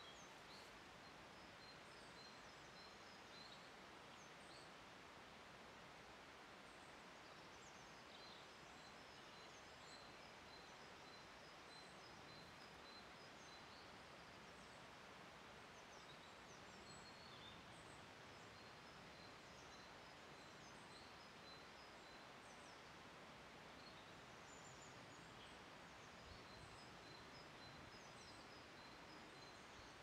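Faint outdoor ambience: a steady low hiss with distant small birds chirping, and runs of quick high notes recurring throughout.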